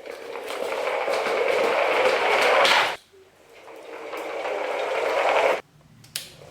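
Small electric motor of a homemade wooden toy truck running, with a steady whine, in two runs that each grow louder and then cut off suddenly, about three seconds in and near the end.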